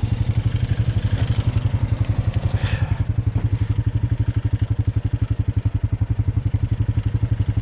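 Quad bike (ATV) engine idling steadily, an even chugging beat of about ten pulses a second.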